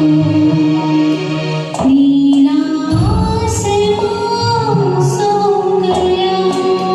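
A woman singing a slow Hindi film song over instrumental accompaniment, holding long, steady notes.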